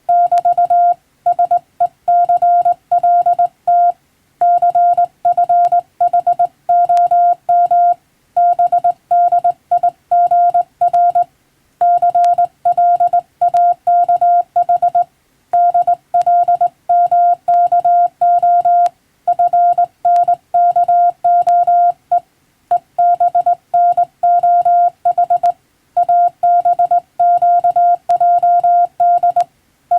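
Morse code sent by hand on a telegraph key as sending practice: one steady tone keyed on and off in quick dots and dashes, with short pauses between letters and words.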